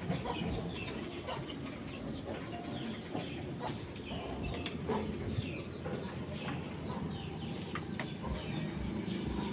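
Chickens clucking, with a few sharp knocks.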